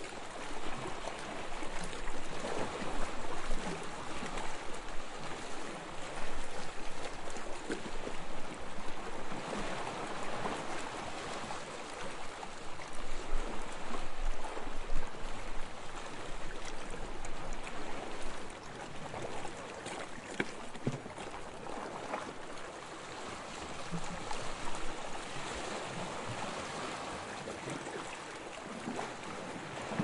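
Calm sea waves washing gently on a shore, a steady hiss of water rising and falling in slow swells every few seconds, a little quieter in the second half.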